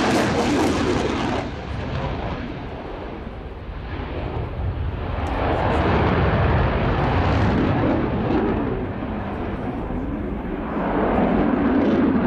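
Dassault Rafale C fighter's twin turbofans with afterburners lit, a loud jet rumble with a rough crackle. It drops away about two seconds in, swells again around six seconds, and rises once more near the end as the jet manoeuvres.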